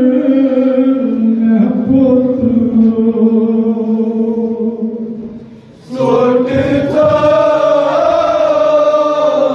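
Men chanting a Kashmiri noha, a Shia lament, over a microphone in long held notes. The singing fades about five seconds in, then a group of male voices comes back in together, fuller and louder, about a second later.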